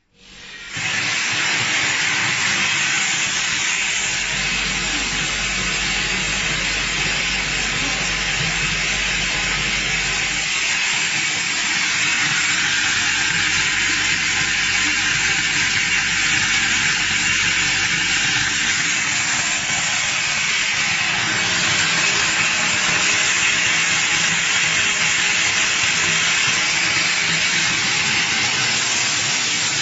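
Wesort 6SXZ-68 optical colour sorter starting up and running on soybeans: a loud, steady hiss that comes up within the first second, with a low hum under it that fades out about ten seconds in.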